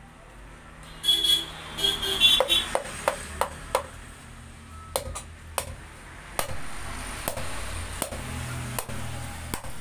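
Butcher's knife cutting beef rib bones out of a chest section on a wooden chopping block, with a run of sharp knocks as the blade strikes bone and block, about one every half second to a second.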